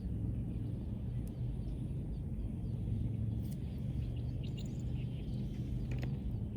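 Outdoor ambience: a steady low rumble with a few sharp crackles, about three, and faint bird chirps.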